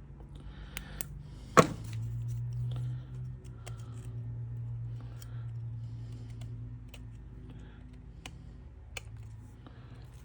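Small metal clicks and taps from handling the old sending unit and tools, with one sharp knock about a second and a half in. A low steady hum sits under the first half and then fades.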